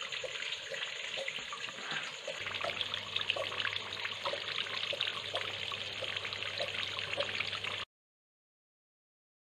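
Small cement tabletop fountain: thin streams of water trickling and splashing down into a pebble-filled basin, with a low steady hum joining about two seconds in. The sound cuts off abruptly near the end, leaving silence.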